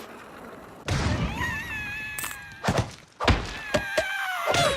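Cartoon slapstick sound effects. A heavy thud comes about a second in, then a string of sharp knocks and thuds over high, wavering pitched tones.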